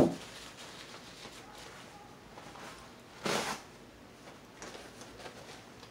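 A glass knocks down onto the tabletop at the start. About three seconds in comes a short rustle of a paper napkin being handled, with quiet table-handling noises in between.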